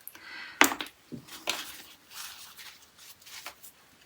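Scattered light clicks and taps of small nail-art tools being handled at the work table, the sharpest one a little over half a second in.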